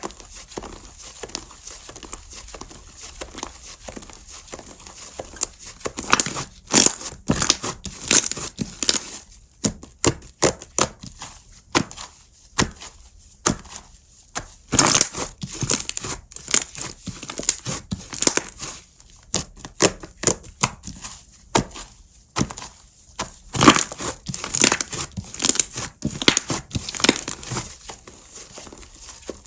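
Slime being squeezed and worked by hand, giving irregular sticky pops and crackles. Soft and sparse at first, with many sharp pops from about six seconds in.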